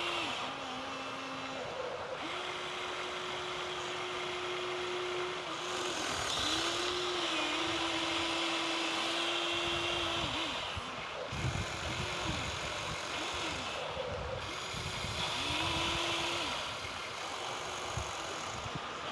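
Small electric motors of radio-controlled model construction vehicles whining, starting and stopping several times with brief rises and falls in pitch.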